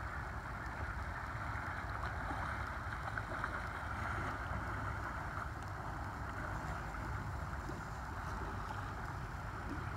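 Creek water flowing steadily, a constant rushing hiss with a low rumble underneath.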